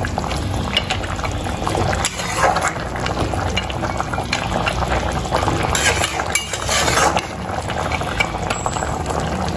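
Mustard-paste curry simmering and bubbling in a metal kadai while a metal spatula stirs it, scraping and clinking against the pan again and again.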